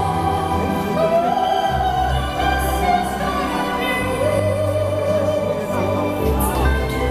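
Operatic singing with orchestral backing, played over the fountain show's outdoor loudspeakers. A high voice holds long notes over low bass chords that change every second or two.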